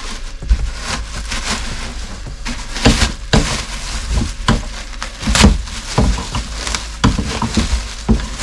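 Irregular knocks, scrapes and rustles of stiff cardboard packaging being handled and pulled away as a car wheel is unboxed.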